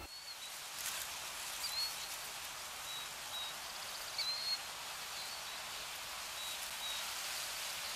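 Nature ambience: a steady, even rushing hiss with scattered short, high bird chirps, about one every second or so.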